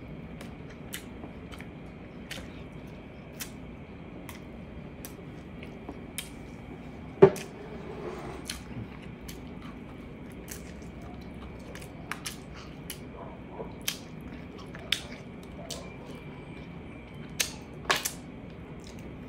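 Eating braised pork ribs by hand: a run of sharp lip smacks and mouth clicks while chewing and gnawing meat off the rib bones, the loudest about seven seconds in, over a faint steady hum.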